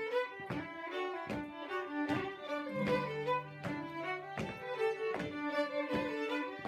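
Two fiddles playing an English West Gallery tune, with an acoustic guitar strumming a steady beat underneath.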